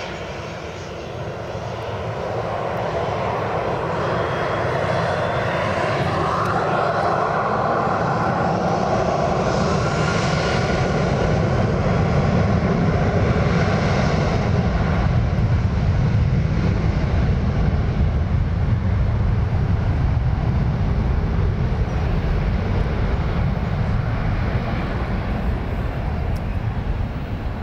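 Boeing 737's twin turbofan jet engines spooling up for takeoff. A whine rises over a deep rumble, growing louder over the first dozen seconds, then the heavy engine noise holds as the jet rolls down the runway.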